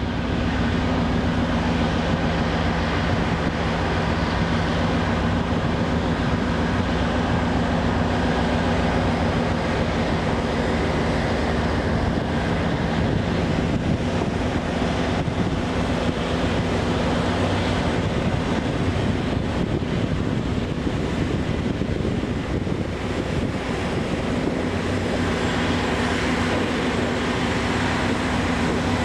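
Steady drone of heavy oilfield machinery running, a low engine hum under a wide rushing noise.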